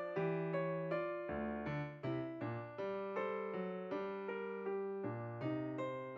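Background music: a gentle piano tune, a few notes a second, each struck and dying away.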